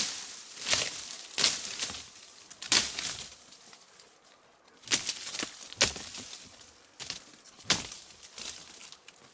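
Sharp, crisp crunches on river cobbles at uneven intervals, about nine in all, with a quiet gap about four seconds in.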